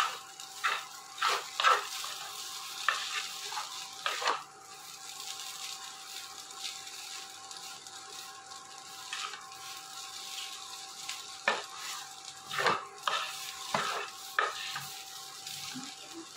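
Chowmein noodles sizzling as they are stir-fried in a nonstick kadai, tossed with a wooden spatula and a fork. The spatula scrapes and knocks against the pan in quick clusters, early on and again after about eleven seconds.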